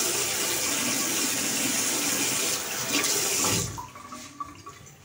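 Water running from a bathroom sink tap while the face is wetted under it; the flow stops about three and a half seconds in.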